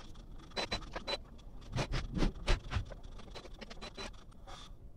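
Epson ink-tank printer running a power ink flushing cycle, sped up: a quick, irregular string of mechanical clicks and ticks from the printhead cleaning mechanism.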